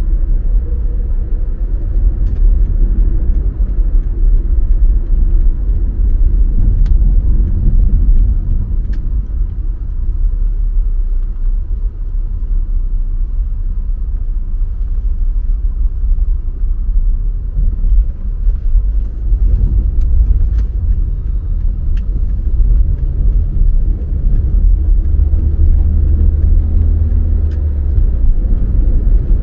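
Car driving at steady speed: a continuous low engine and road rumble that swells for a few seconds near the end, with a few faint clicks.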